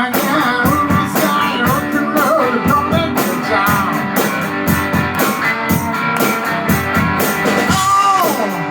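Rock and roll band playing an instrumental passage between sung lines: a lead guitar line with bending notes over a steady drum beat.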